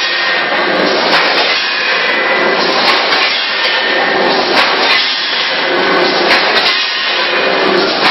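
Automatic bagging machinery running: a rotary pouch-packing machine and multihead weigher, giving a loud, steady mechanical clatter with a repeating clack a little under twice a second.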